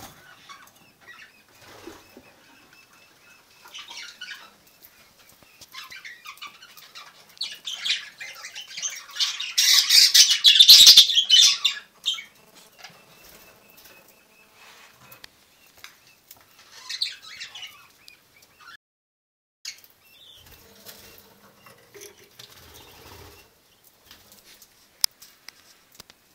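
Budgerigars fluttering their wings in show cages: scattered short flurries of wingbeats, with the loudest and longest flurry lasting about four seconds near the middle.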